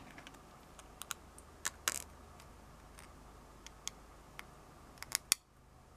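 Light clicks and ticks of tiny screws and a thin carbon-fibre frame plate being handled as the screws are pushed through the plate by hand. A few sharp clicks come about a second in, two near two seconds, and a quick pair near five seconds.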